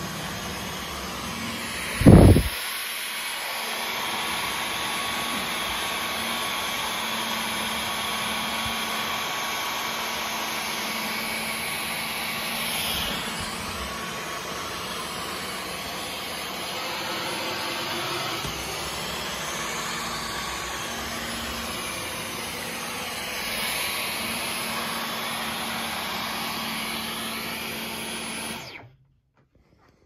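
Dyson V15 Detect cordless stick vacuum running steadily while vacuuming a wooden floor: a rushing hiss with a faint steady whine. A loud low thump comes about two seconds in, and the sound cuts off abruptly near the end.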